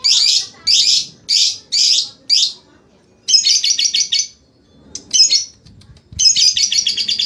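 Lovebird calling: five short harsh chirps in quick succession, then a brief rapid chattering trill, and about six seconds in a long fast trill starts, the continuous 'ngekek' chatter that lovebirds are trained to sing.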